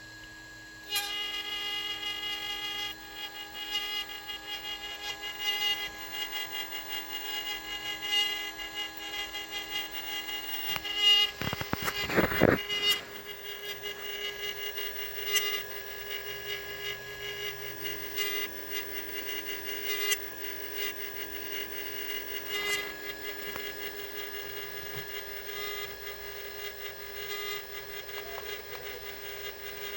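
DJI Phantom 4 Pro camera gimbal motors making a steady buzzing, grinding whine of several high tones, with scattered clicks and one louder sweep in pitch near the middle. This is the gimbal noise that appeared with firmware 01.04.0602.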